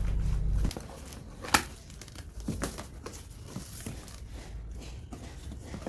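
Packaging from a plant shipment being crinkled and torn open by hand: scattered crackling, with one sharp snap about a second and a half in.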